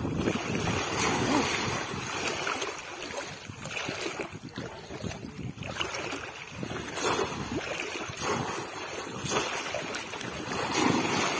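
Water sloshing and splashing as people wade through shallow floodwater and a bamboo polo fish trap is pushed down into the water and lifted out, water pouring off its rim, with wind buffeting the microphone.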